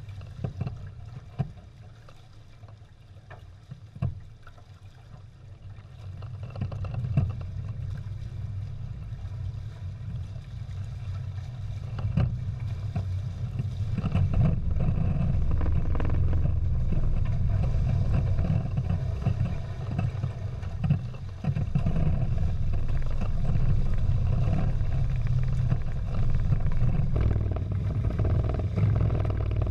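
Prindle 16 catamaran under sail: water rushing and splashing along the hulls, with wind buffeting the microphone as a low rumble. It grows louder about six seconds in and again about fourteen seconds in, with a few sharp knocks in the first five seconds.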